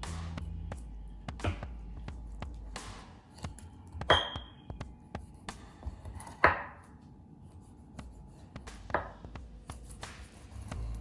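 Kitchen prep sounds: scattered knocks like a knife or utensil on a cutting board, the two loudest about four and six and a half seconds in, the first followed by a short ringing ping.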